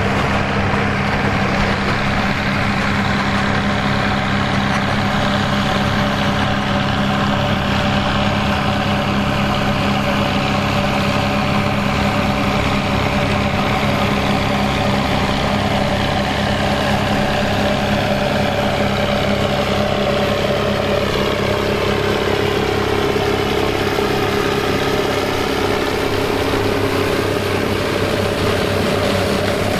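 Turbocharged Fiat 800 tractor's four-cylinder diesel engine running steadily at a constant speed. About two-thirds of the way through, a further steady tone joins the engine sound.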